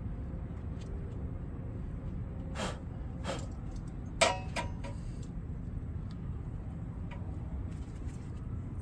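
Metal brake parts and tools being handled at the rear brake caliper: a few light knocks, then one sharp metallic clink that rings briefly about four seconds in, over a steady low background rumble.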